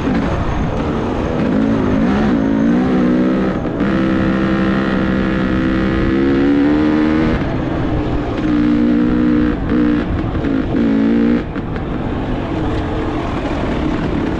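Dirt bike engine running as it rides along a rough trail, the pitch rising and falling as the throttle opens and closes, with short drops off the throttle about four seconds in and again past the eleven-second mark.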